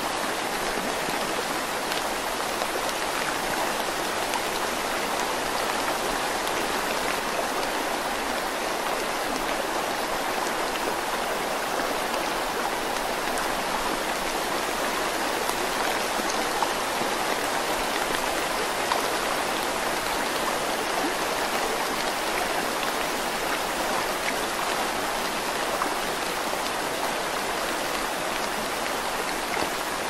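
Steady rain falling, an even unbroken hiss.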